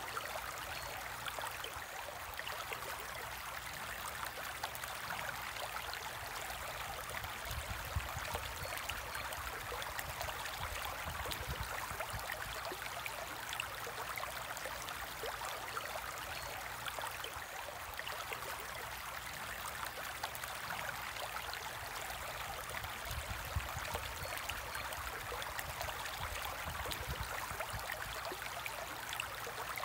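Aquarium water moving: a steady trickling with a fine crackle of bubbles, over a low rumble that swells now and then.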